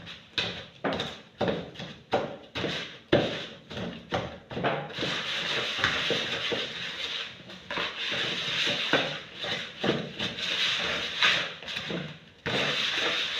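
Wooden spoon creaming butter and sugar by hand in a plastic bowl: short scraping strokes about two a second, turning into quicker, near-continuous scraping about five seconds in.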